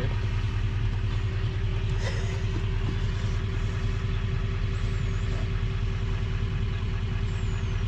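A steady, even drone of an engine-driven machine running at idle, with a fast low pulsing rumble.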